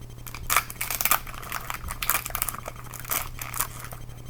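Foil booster-pack wrapper crinkling in a series of irregular crackles as it is handled and torn open by hand.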